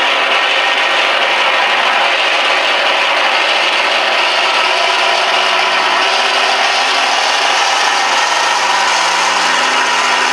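Recorded radial aircraft engine sound (the Shockwave 190 sound file) played loud from an RC Skyraider's onboard sound module through two 3-inch speakers. It is a steady, rough running sound with no deep bass, and its lower tones shift down a little about two-thirds of the way through.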